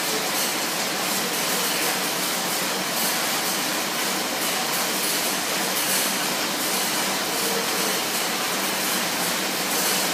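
Schwinn AirDyne air bike's fan whooshing steadily as it is pedalled with arms and legs.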